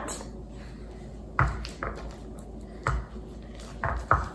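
A silicone spatula and a ceramic bowl knocking as chocolate chips are stirred into soft ice cream: about five short, dull knocks, two close together near the end.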